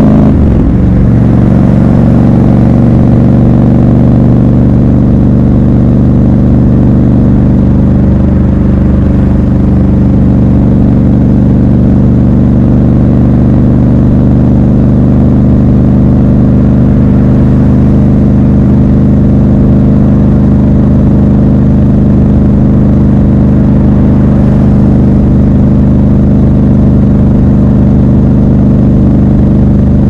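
Triumph Scrambler 1200 XC's 1200 cc parallel-twin engine under way: its note drops about a second in, then holds a steady pitch while cruising.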